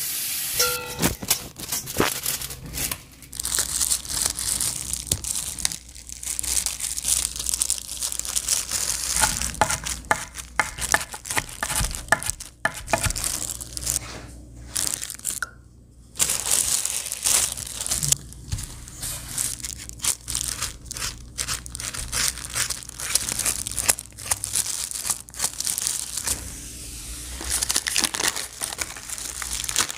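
Crinkling and rustling of thin plastic gloves and food wrapping being handled, with many small sharp crackles and taps and a brief pause about halfway.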